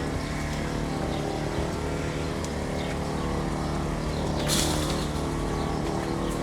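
Steady machine hum, with a short burst of noise about four and a half seconds in.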